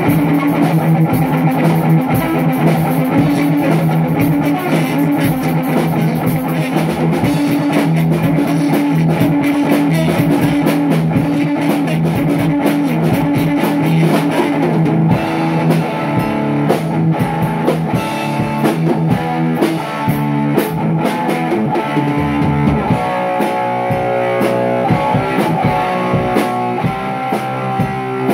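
Rock music with guitar and a drum kit. About 23 seconds in, the lowest bass notes drop out and the playing carries on higher up.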